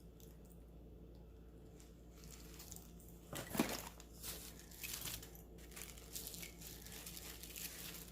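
Bolo ties and their wrapping being handled: a run of rustles and light clicks starting about three seconds in, with one sharper click near the start of the run.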